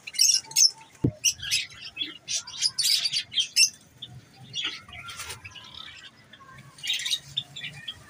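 Short, sharp chirps from small aviary birds in a Java sparrow and lovebird colony, coming in quick runs through the first few seconds and again near the end. There is one dull knock about a second in.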